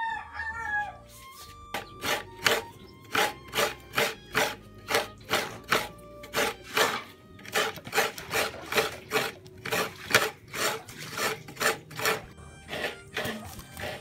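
Coconut flesh being scraped on a serrated metal coconut grater (kudkuran), a steady run of short rasping strokes at about three a second. A rooster's crow trails off at the very start.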